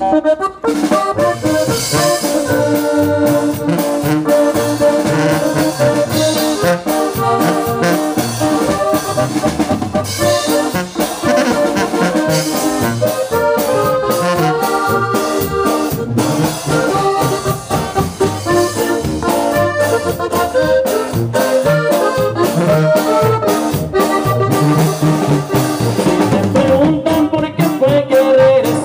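Live Mexican regional band playing an instrumental passage: tuba carrying the brass line over accordion, guitar and a drum kit keeping a steady beat, heard through a PA.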